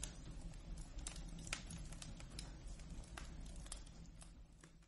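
Faint wood fire crackling in a fireplace: irregular sharp pops and snaps over a low steady rumble.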